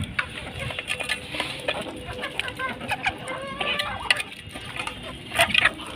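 Rooftop flock of chickens clucking and calling, several birds at once, with a louder cluster of calls near the end.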